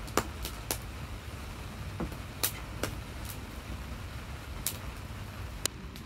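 Wood campfire crackling: scattered sharp pops, about eight over six seconds at irregular intervals, over a low steady background hum.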